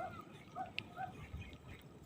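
Faint bird calls: three short notes about half a second apart, with a few thin high chirps around them.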